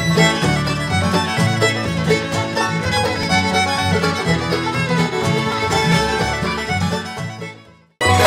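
Acoustic bluegrass band playing an instrumental passage on fiddle, banjo, guitar, mandolin and upright bass. It fades out near the end, and after a brief gap a different tune starts abruptly.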